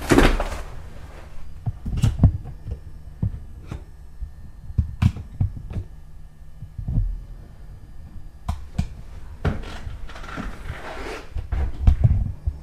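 Irregular low thumps and a few sharp clicks over a faint steady hum: handling noise on a handheld camcorder as it is moved and pointed around a room, with a louder rustle at the very start and again about ten seconds in.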